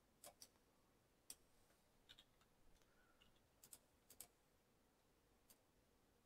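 Near silence broken by faint, scattered clicks of computer keyboard keys and mouse buttons, about ten short clicks spread unevenly through the few seconds.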